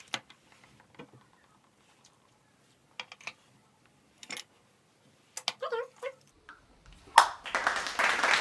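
Scattered light clicks and taps of makeup containers and a brush being handled, with a brief giggle partway through. About seven seconds in, a loud rushing noise starts and carries on to the end.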